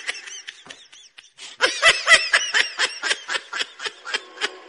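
A person laughing in a rapid run of short high-pitched pulses. The laugh is faint at first, then louder at about four pulses a second from about one and a half seconds in.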